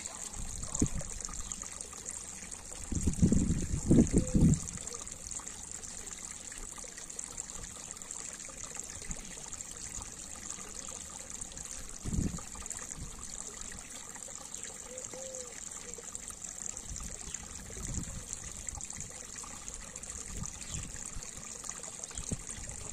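Small garden-pond waterfall trickling steadily, with a few low rumbles on the microphone, the loudest about three to four and a half seconds in.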